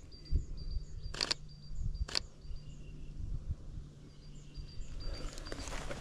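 Two crisp camera shutter clicks about a second apart, the mirrorless Sony A7R V firing, over small birds repeating short high calls. Footsteps on the forest floor start again near the end.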